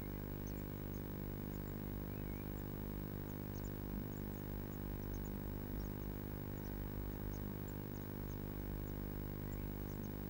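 Blue tit nestlings giving faint, very short, high-pitched begging cheeps, about two or three a second, over a steady low hum.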